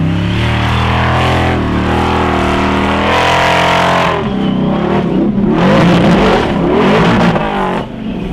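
Formula Offroad hill-climb car's engine at full throttle, revving up and down in waves as it claws up a steep sand slope. About four seconds in the note turns rougher and more uneven, and it drops off briefly near the end as the car tips over.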